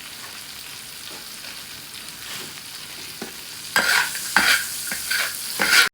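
Food sizzling in hot oil in a pan, steady and fairly quiet. About two-thirds of the way in come four loud scraping strokes of a spatula stirring it, about one every half second.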